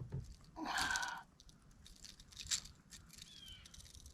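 Handling noise of fishing gear aboard a kayak: a few sharp clicks and a louder rasping burst about a second in, with quieter scattered ticks between.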